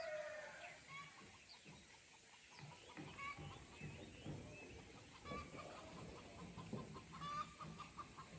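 Faint clucking of chickens, short calls every second or two.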